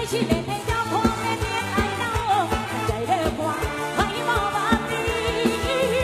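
Live lam sing band music: a wavering vocal melody over a steady drum beat and bass.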